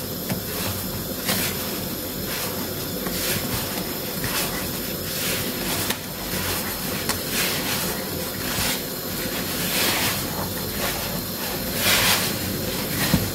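A hand mixing a dry, crumbly flour-and-butter mixture into dough in a plastic bowl: irregular soft scraping and rubbing strokes about once a second, over a steady hiss.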